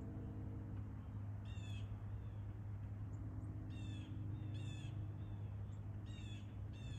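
A crow-like bird calling with short, harsh caws, five in all: one about a second and a half in, then four more spread through the last three seconds. A steady low rumble runs underneath.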